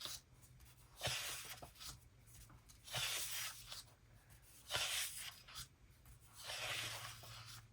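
Sheets of thin copy-weight scrapbook paper rustling as they are turned over one at a time, four swishes about every one and a half to two seconds.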